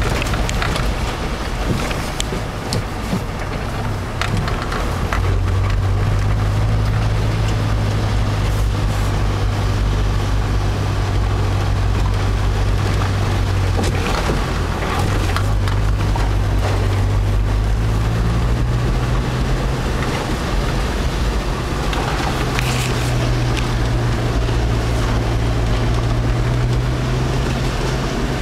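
Steyr-Daimler-Puch G (Mercedes G-Class) off-roader's engine running steadily as it drives through water, its pitch dipping briefly near the middle and then stepping up higher about two-thirds of the way through, over a continuous rush of wind and breaking surf.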